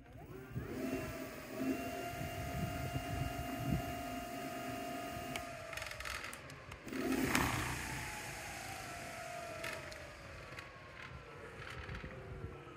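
Arwibon Q13 Pro electric scooter's twin hub motors whining under throttle in turbo dual-motor mode: the pitch rises quickly, holds steady for a few seconds, then falls slowly as the wheels run down. A short loud rushing noise comes about seven seconds in.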